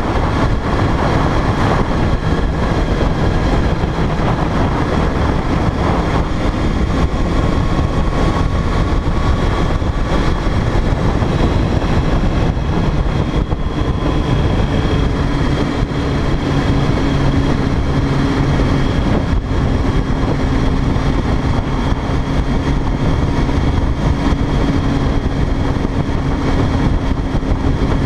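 Sport motorcycle engine running at a steady cruise, mixed with heavy wind rush over the camera's microphone.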